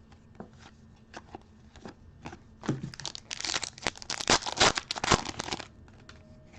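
Plastic trading-card pack wrapper being handled and torn open. A few light clicks come first, then dense crinkling from about three seconds in that lasts nearly three seconds.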